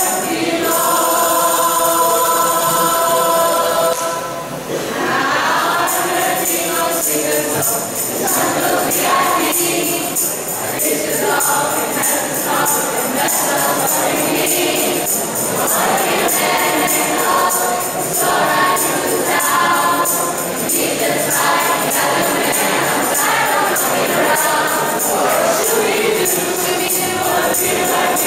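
Mixed school choir of girls and boys singing in harmony, with a tambourine jingling along. A held chord opens, then after a brief dip about four seconds in the singing carries on in shorter, moving phrases.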